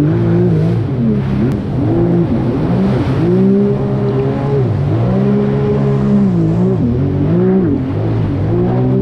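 Sea-Doo jet ski's Rotax engine running hard at speed, its pitch rising and falling again and again as the throttle works, over a steady rush of water and spray against the hull.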